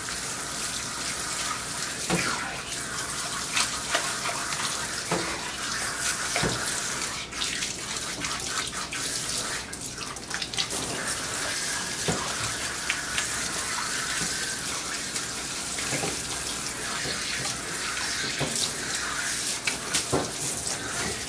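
Water from a hose spray nozzle running steadily, rinsing the shampoo out of a wet dog's coat in a grooming tub, with spray splashing off the fur and into the tub.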